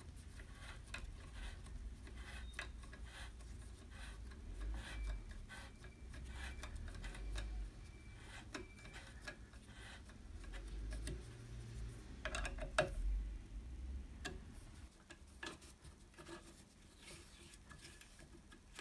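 Hex key turning a button-head screw into a tapped hole in an aluminium table: light, irregular clicks and ticks of the key in the screw's socket and the screw running in, with one sharper click about two-thirds through.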